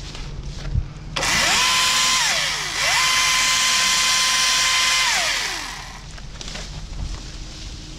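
Husqvarna T536LIXP battery top-handle chainsaw run up twice while cutting up fallen branches. Each time the motor whine climbs quickly, holds at a steady pitch and winds down. The first run is short, about a second in; the second, right after, holds for about two seconds. A small knock comes just before the first.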